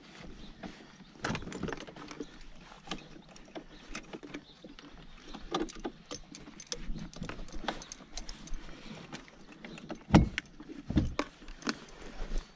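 Clicks, knocks and rattles from handling a small Yamaha outboard motor and its metal mounting bracket on a kayak, with a heavier thump about ten seconds in. The motor is not running.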